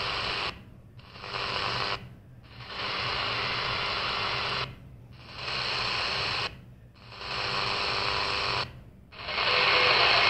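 Static hiss from a CS-106 DSP receiver stepping through empty medium wave channels. It goes briefly silent five times as it moves to the next frequency. Near the end the hiss gets louder.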